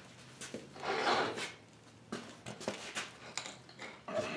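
Footsteps and shoe scuffs on a concrete floor, with a short louder scrape about a second in.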